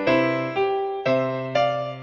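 Background music: struck, pitched notes come in evenly about twice a second, each ringing and then fading.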